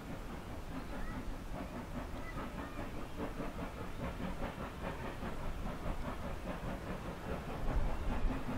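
Austerity 0-6-0 saddle-tank steam locomotive heard at a distance, chuffing in a steady rhythm as it works a train up a steep gradient. Wind buffets the microphone throughout, with a stronger gust near the end.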